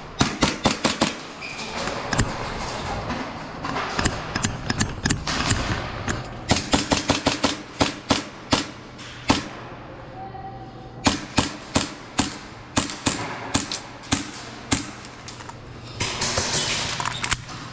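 Airsoft guns firing in rapid bursts of sharp cracks during close-quarters play, with pauses between volleys.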